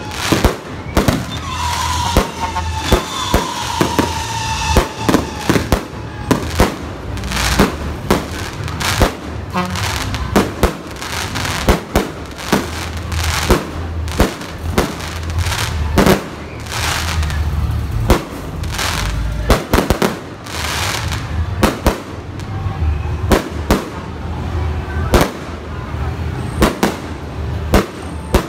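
Fireworks display: a rapid, irregular barrage of bangs from aerial bursts and multi-shot cakes, several a second at times, with crackling and hissing between them.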